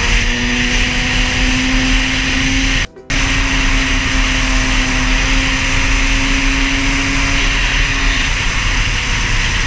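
A Kawasaki KDX two-stroke dirt bike engine runs steadily at highway cruising speed under heavy wind noise on the helmet-mounted microphone. The sound drops out briefly about three seconds in.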